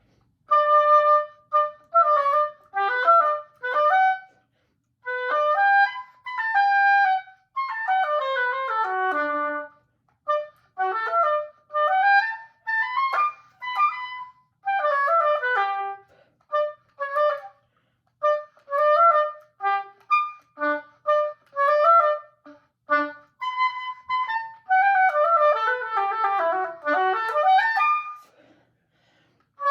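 Solo oboe playing a fast, technical passage: many quick short notes in phrases with brief breaks, and a dense rapid run near the end.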